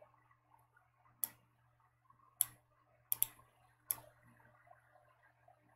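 Five sharp computer-mouse clicks, spaced about a second apart, with two in quick succession about three seconds in, over a faint low hum.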